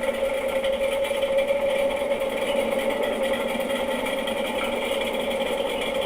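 Washing machine spinning, with a fast, steady metallic rattle like a popcorn maker: a loose screw lodged between the tub and the spin basket.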